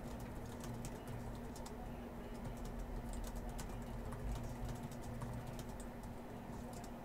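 Typing on a computer keyboard: irregular quick key clicks over a steady low hum.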